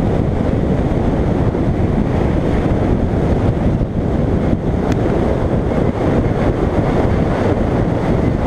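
Steady, loud wind buffeting on the microphone of a camera held up through the sunroof of a car moving at speed, mixed with the car's road rumble.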